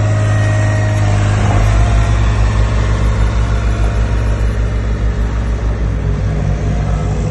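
Ride-on double-drum asphalt roller's diesel engine running with a steady hum, which about a second and a half in turns into a deeper, heavier throb with a quick, even pulse as the roller drives forward over the new asphalt.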